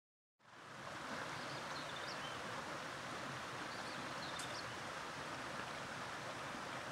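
River water flowing, a steady rushing that fades in just after the start, with a few faint high chirps over it about two and four seconds in.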